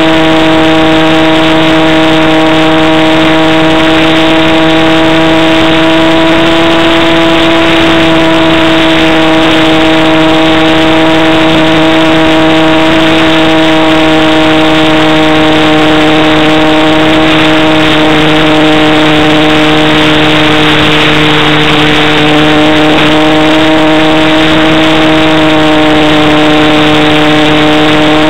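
Radio-control model Cessna's motor and propeller running steadily in flight, a loud droning tone over heavy wind rush. The pitch sags slightly about two-thirds of the way through and then recovers.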